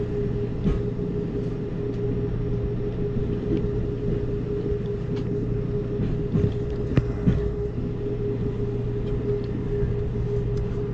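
Amtrak Cascades passenger train running across a steel truss rail bridge: a steady rumble with a constant hum, broken by a few sharp knocks, the loudest about seven seconds in.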